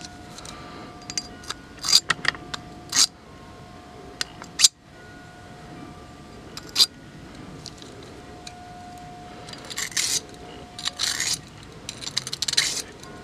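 Freshly sharpened steel root-pruning shears worked open and shut by hand, giving scattered metallic clicks and snips, with quick runs of them about ten seconds in and again near the end.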